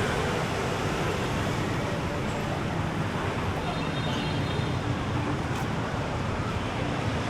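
Steady road-traffic noise, a continuous rumble of passing vehicles.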